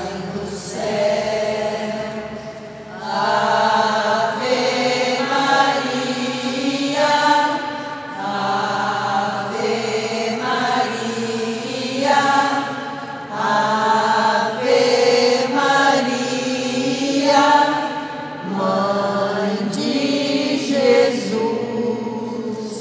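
A small group of voices singing a Marian hymn together in slow, held phrases, fading out near the end.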